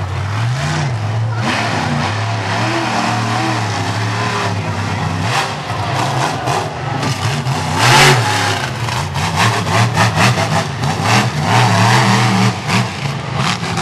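Monster truck engine revving hard, its pitch climbing and dropping again and again, with a loud bang about eight seconds in and a string of sharp cracks after it.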